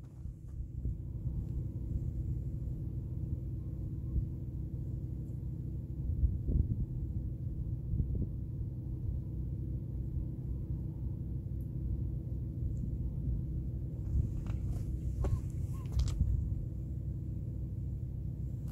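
A low, steady outdoor rumble, with a few light knocks and rustles near the end.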